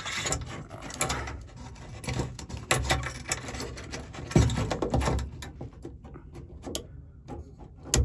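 Handling noise as a Nilight switch panel is test-fitted by hand into a cut-out in the Jeep Gladiator's bed wall: irregular clicks, knocks and scraping, with a few louder knocks around the middle.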